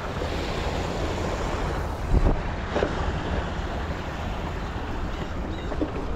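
Wind buffeting the microphone over the rumble of a mountain bike rolling along a rocky trail, with a thump about two seconds in.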